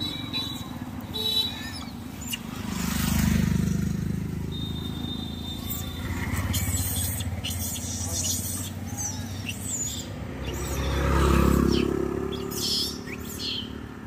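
Motor vehicles passing on the road: a rumble swells and fades about three seconds in, and again, louder, near the end. Birds chirp over it.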